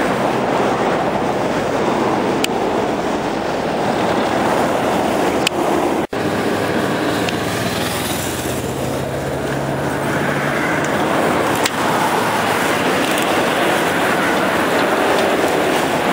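Steady rushing outdoor noise, wind on the microphone mixed with road noise, with a brief sharp dropout about six seconds in.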